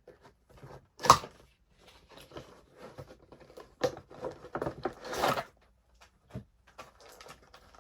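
Cardboard toy box and sticky tape being torn and handled: a string of scrapes, clicks and rustles, with a sharp snap about a second in and a longer tearing rip a little after five seconds.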